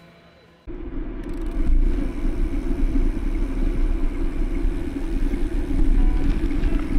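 Wind buffeting the camera microphone while cycling along a paved path: a loud, steady rumble that starts abruptly under a second in.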